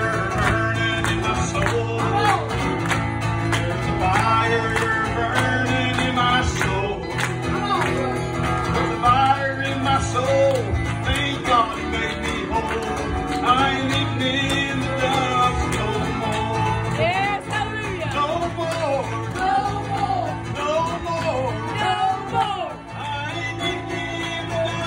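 A man singing a country gospel song and strumming an acoustic guitar.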